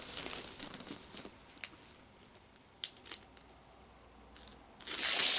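Paper gift wrap being crinkled and torn as a present is unwrapped: rustling at first, a few sharp clicks in the quieter middle, and a loud rip near the end.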